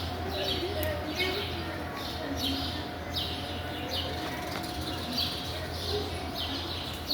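A bird chirping over and over, short chirps at about one to two a second, over a steady low hum and faint voices.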